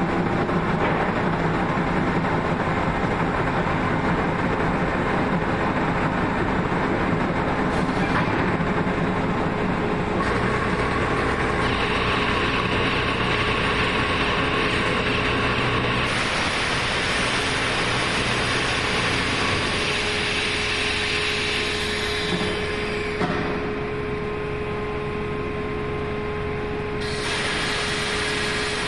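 Hydraulic press for compressed sawdust core plugs running, a steady mechanical noise that changes in steps several times as the press moves through its cycle and opens. A steady whine comes in about a third of the way through.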